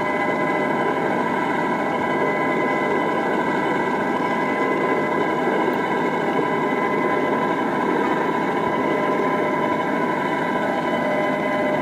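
A 1-inch-scale ride-on GP-20 model locomotive running as it backs along the track: a steady engine-like drone with several constant whining tones over it.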